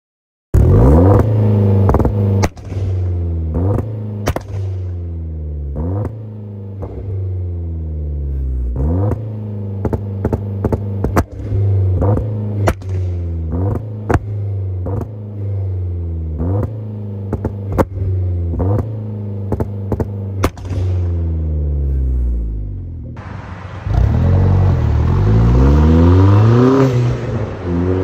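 Hyundai Genesis Coupe 2.0T's turbocharged four-cylinder revved again and again through a CNT V3 cat-back exhaust with its resonator hammered in. Quick rises and falls about every second or two, with sharp cracks among the revs. About three quarters of the way in, the sound cuts to the car accelerating along a road, with wind on the microphone.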